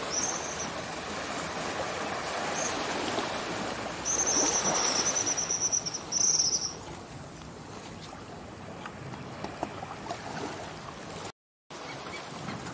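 Small waves washing gently on a sandy beach, with high-pitched trilling calls over it that are loudest between about four and seven seconds in. The sound drops out briefly near the end.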